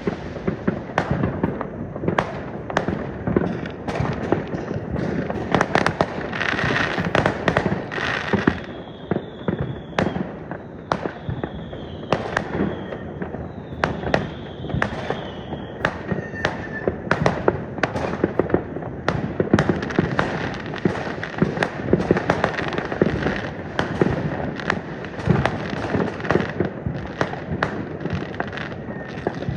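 Many fireworks going off in rapid succession: a constant barrage of bangs and crackling pops. About a third of the way in, three whistling fireworks sound one after another, each whistle falling slightly in pitch.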